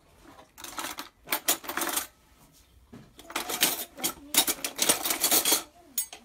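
Thin plastic bag crinkling and rustling as it is handled, in two stretches of crackly noise, the second longer.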